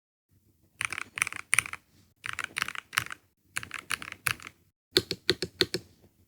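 Keys on a ROG Azoth 75% hot-swap mechanical keyboard with freshly lubed switches being typed in several short bursts of quick keystrokes, with brief pauses between the bursts.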